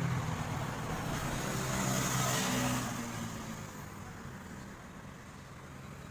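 A road vehicle passing by: engine hum and tyre noise swell to a peak about two and a half seconds in, then fade away.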